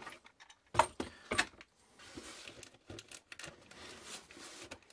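Hard plastic parts of a desoldering gun's clear solder collection chamber being handled, with two sharp clicks about a second in, followed by softer rattling and rustling.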